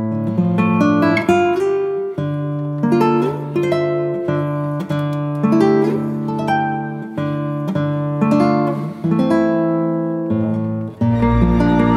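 Background music of plucked acoustic guitar, one note or chord after another. Near the end a deeper, fuller part comes in.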